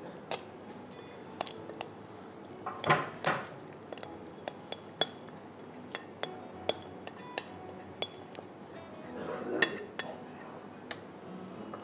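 Spoon clinking against metal cookware as a buttery biscuit-crumb cheesecake base is spooned into an adjustable cake ring and levelled. There are about twenty irregular sharp clinks, some ringing briefly.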